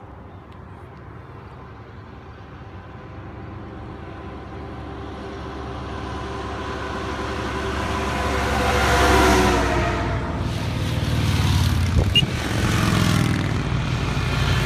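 A heavy tanker truck approaches and passes close by on the highway. Its engine and tyres grow steadily louder to a peak about nine seconds in, and the engine pitch drops as it goes by. Motorcycle engines then rise as a line of bikes draws near.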